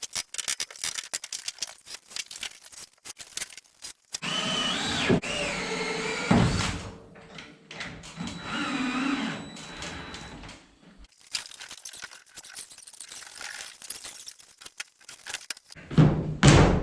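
Power drill driving screws in two spells of a few seconds each, its pitch rising and falling, between stretches of light clicking and knocking. A loud knock comes near the end.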